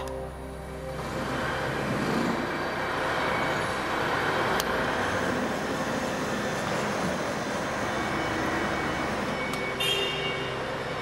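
WEISS WBL290F benchtop metal lathe running while it cuts a thread, a steady mechanical noise that sets in about a second in. A sharp click about halfway through and a brief high squeak near the end.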